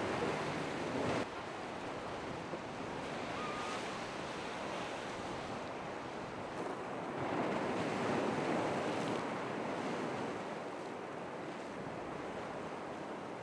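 Ocean waves washing and breaking, with wind on the microphone; the wash swells louder about seven seconds in, then eases off.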